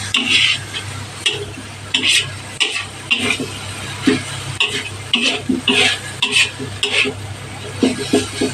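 A cooking utensil scraping and stirring katuray (sesbania) leaves in a pan in irregular strokes, about one or two a second, as the leaves are cooked down dry. A low steady hum runs underneath.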